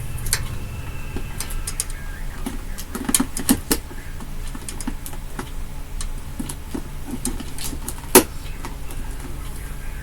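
Scattered clicks, taps and knocks from hands working on wiring and fittings, with a sharper knock about eight seconds in, over a steady low hum.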